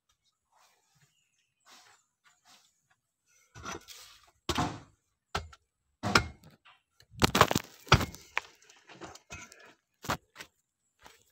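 A long-handled digging tool chopping into and scraping packed earth: a run of dull thuds with rough scrapes, the heaviest a cluster about two thirds of the way through.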